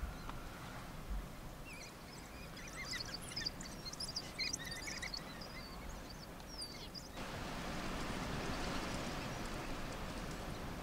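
African wild dogs giving rapid, high-pitched, bird-like twittering chirps for several seconds: the excited calls of the pack. About seven seconds in the chirps stop and a steady even hiss takes over.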